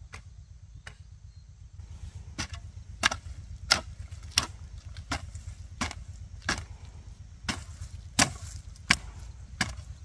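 A hand tool chopping in a steady rhythm, about three strikes every two seconds, setting in firmly about two seconds in after a few faint knocks.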